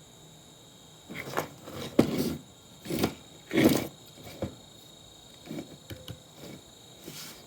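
Parts of an old monitor being handled and taken apart: a string of knocks and scraping clatters, the loudest between about two and four seconds in, then a few lighter ticks.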